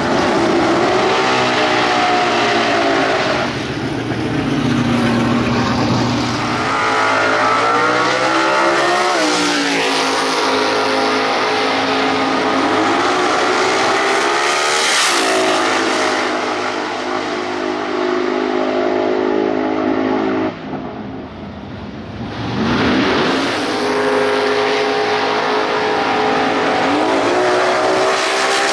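Turbocharged Ford Barra straight-six in a drag-racing Falcon, revved again and again with its pitch climbing and falling. It drops away briefly, then sweeps up hard as the car launches off the line near the end.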